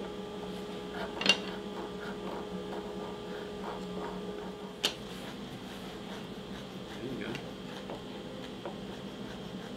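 Needle files rasping on small wooden fidget-spinner pieces in short hand strokes, with two sharp clicks, one about a second in and one near the middle, over a steady hum.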